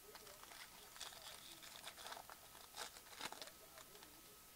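Wrapper of a Bowman baseball card pack being torn open and crinkled by hand: faint crackling and rustling with a few sharper crackles about three seconds in.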